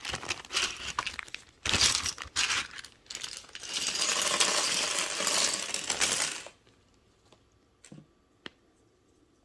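Plastic packaging crinkling while loose plastic keycaps rattle and clink together, for about six and a half seconds; then it stops and a few single light clicks follow.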